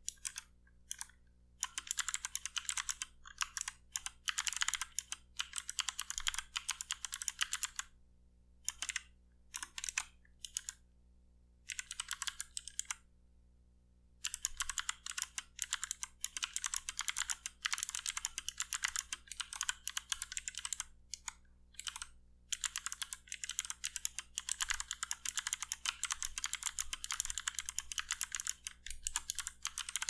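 Fast typing on a mechanical keyboard with Kailh Speed Bronze (Thick Gold) clicky switches: rapid runs of sharp clicking keystrokes in bursts, broken by brief pauses.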